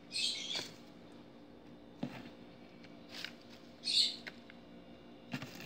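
Rustling of citronella-scented geranium sprigs and crinkling of a clear plastic bottle as the leaves are handled and pushed into it. There are a few short rustles, a click about two seconds in and a cluster of clicks and rustles near the end.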